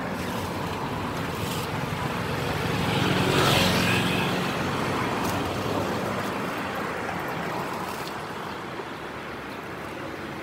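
Street traffic noise, with one motor vehicle passing close, loudest about three and a half seconds in, then fading.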